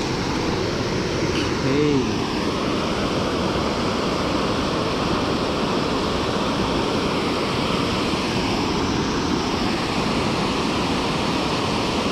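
Steady rush of river water pouring over a low dam (weir) and churning in the white water below it.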